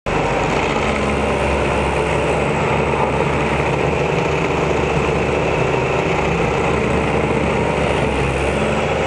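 Self-propelled stump grinder running steadily at full power, its engine and toothed cutter wheel grinding into a tree stump.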